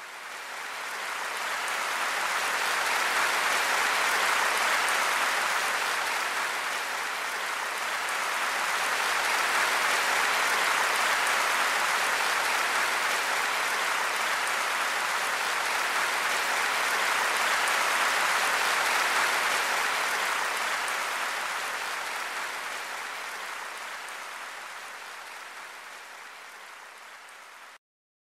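Applause from a large audience: dense, continuous clapping that builds over the first couple of seconds, dips slightly and swells again, then slowly fades before cutting off suddenly near the end.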